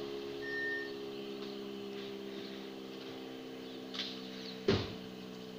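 Steady low hum of an idling engine. A brief high chirp comes about half a second in, and a sharp knock near the end.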